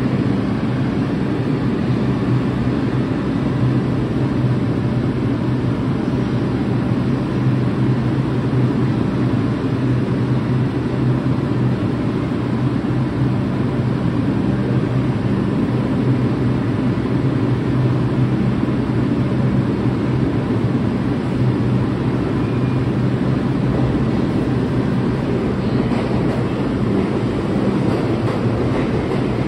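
New York City subway train noise: a steady low hum over a rumble, unchanging throughout.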